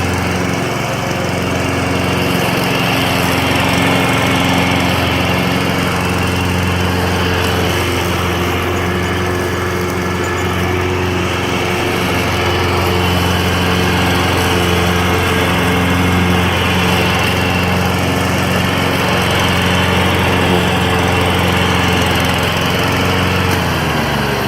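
Toro GTS push mower's 5 hp Suzuki four-stroke OHV engine running steadily at speed. Near the end its pitch drops as the engine slows.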